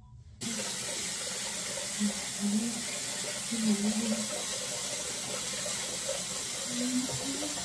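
Water running steadily from a sink tap, switched on suddenly about half a second in, for rinsing off a clay face mask with a washcloth. A few short low hums sound over it.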